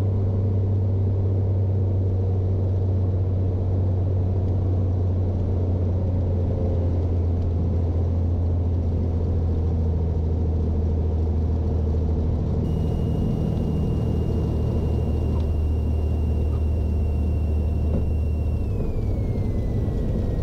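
Single-engine Cessna 210's engine and propeller droning steadily, heard in the cockpit through final approach and landing. Near the end a higher whine slides down in pitch and the low drone changes.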